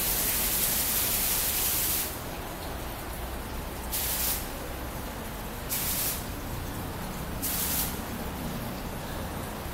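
Digital water-curtain fountain: a steady hiss of falling droplets splashing into the basin drops sharply about two seconds in as the curtain thins to a few streams. After that come three short surges of splashing as new drop patterns fall.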